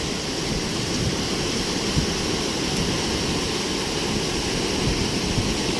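Heavy ocean surf breaking, a steady rushing noise with a deep rumble underneath.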